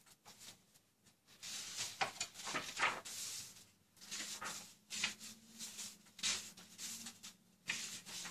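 Pages of a book being leafed through and turned by hand: irregular paper rustles and flicks, starting about a second in.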